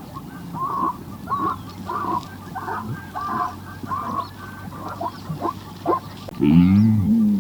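A series of short animal calls, about ten in six seconds, followed near the end by a louder, drawn-out call with a wavering pitch.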